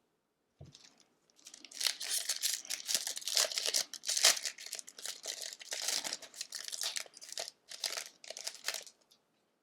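A foil hockey card pack wrapper being torn open and crinkled by hand: busy, irregular rustling and tearing that starts about a second in and stops shortly before the end.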